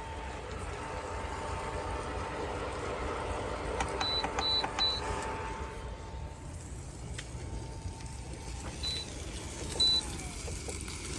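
Induction cooktop running with a steady whine. Its control panel beeps three times in quick succession about four seconds in, then twice more near the end. After the last beep the whine slides down in pitch as the power setting changes.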